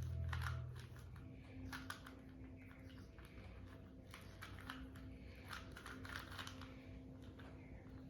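Rubik's cube being turned rapidly during a solve, its layers clicking and clacking in quick, irregular runs. Background music with a deep bass fades out about a second in.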